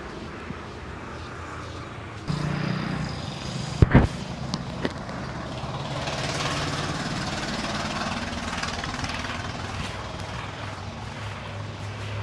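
Roadside traffic noise, with a vehicle engine starting to run nearby a couple of seconds in and keeping up a steady low hum. About four seconds in there are a few sharp clicks or knocks.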